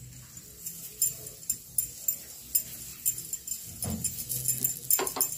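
Paratha cooking on a hot tawa with ghee: a faint sizzling crackle of small sharp ticks, with light clicks and two duller knocks of a utensil against the pan near the end.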